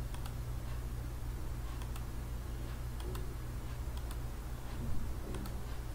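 Computer mouse button clicks, a dozen or so at irregular intervals, as line endpoints are placed while sketching. A steady low hum runs underneath.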